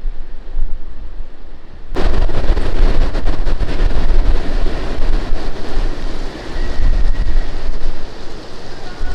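Strong wind gusting and buffeting the microphone with a deep rumble. About two seconds in, the sound changes abruptly to a louder, hissier rush of wind.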